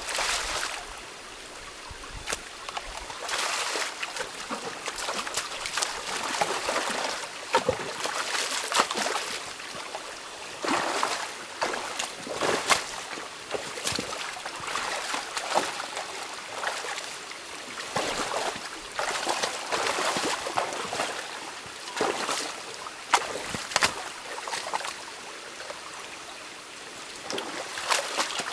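Stream water trickling and splashing while a beaver dam of sticks and mud is pulled apart by hand. Irregular splashes and sloshes come every second or so over the steady running water.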